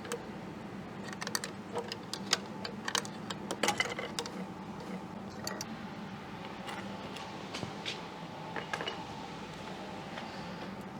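Scattered light metallic clicks and clinks of hand tools and small parts being worked, over a steady low hum.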